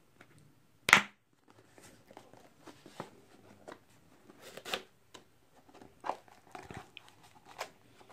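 Snap-clip latches of a small hard plastic case clicking open, with one sharp click about a second in, followed by light clicks, taps and rustling as the case is handled and its lid lifted.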